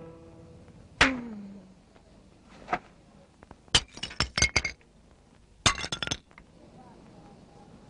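Cartoon sound effects: a sharp knock with a tone sliding down about a second in, then a single click and two quick runs of sharp clinks, near four and six seconds in.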